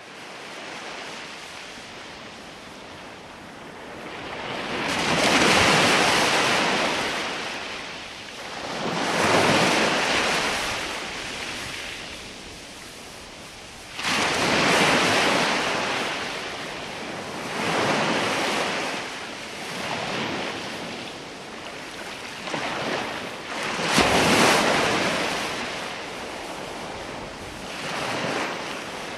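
Ocean surf: waves breaking and washing up the shore, the rush swelling and fading every four to five seconds, with two sharper crashes about halfway through and near the end.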